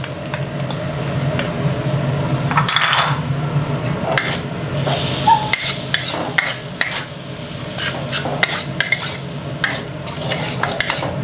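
Metal spatula scraping and knocking against a wok as fried rice is tossed and stirred, with irregular clinks and scrapes over a steady low hum.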